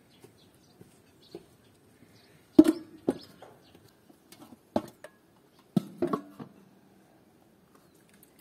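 Enamel basin, enamel bowl and metal tray clinking and knocking against each other in a handful of sharp hits, some with a short ring, as the stacked dishes are carried and set down. The loudest knock comes about two and a half seconds in.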